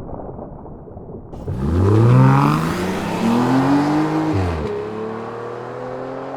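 An engine-like revving sound: its pitch climbs from about a second and a half in, falls away and stops about three seconds later, then a steadier hum carries on, slowly rising in pitch.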